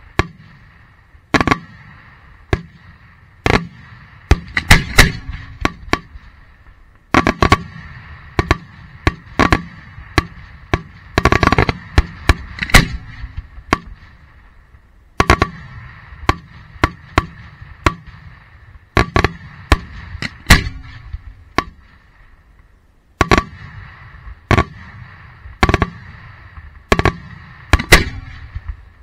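Daytime fireworks shells firing from ground mortar tubes close by and going off with loud, sharp bangs at irregular intervals. The bangs come sometimes singly and sometimes in quick volleys of several within a second or two, with a faint hiss lingering between them.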